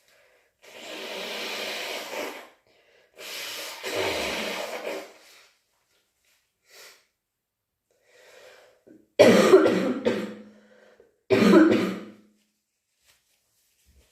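A person with the flu makes two long, breathy rushes of air, then coughs twice, loud and sudden, about two seconds apart.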